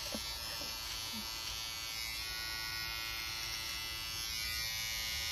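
Electric hair trimmer buzzing steadily as its blade trims a man's eyebrows.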